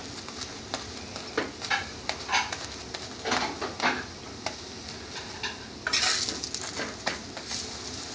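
Paratha frying in ghee on a flat griddle (tawa), sizzling steadily, while a metal slotted spatula presses and scrapes it against the pan in irregular clicks and scrapes. There is a longer burst of scraping about six seconds in.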